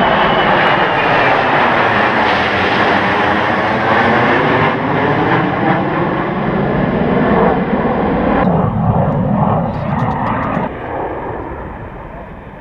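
Airbus A330 airliner and the Patrouille Suisse's F-5E Tiger II jets flying past low in formation, giving loud, steady jet engine noise with a slowly shifting, phasing tone. About two-thirds of the way through, the sound changes abruptly to another jet pass, which fades away near the end.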